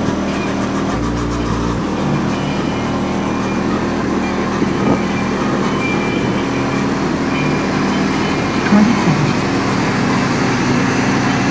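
Car audio system in a Dodge Durango playing loud bass, heard from outside the closed truck: a steady low drone with a deeper bass note for about a second near the start.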